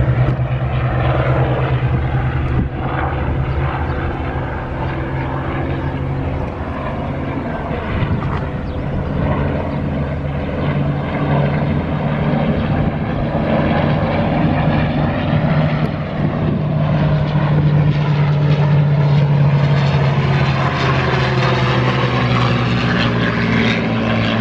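Propeller airplane engine droning steadily as the plane flies, its pitch shifting slightly partway through.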